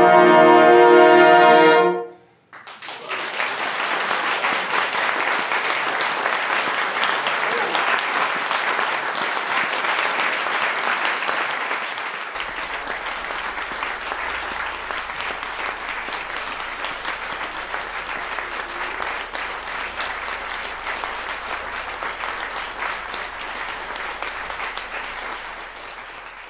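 A French horn ensemble holds a final chord for about two seconds and cuts off together. After a brief pause, the audience applauds, the clapping slowly growing quieter and fading out at the end.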